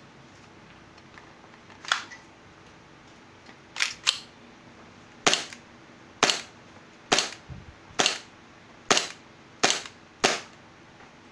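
A KJ Works CZ P-09 gas blowback airsoft pistol, fitted with a suppressor and run on green gas, fires about ten single shots at a steady pace of roughly one a second, with a quick double shot about four seconds in. Each shot is a sharp crack with a short echo.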